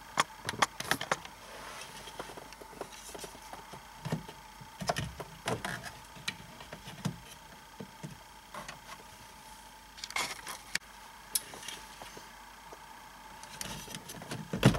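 Scattered clicks and taps of the BMW E46's wood dash trim being fitted and pressed back into its metal retaining clips, with small clusters of clicks about two-thirds of the way through and near the end.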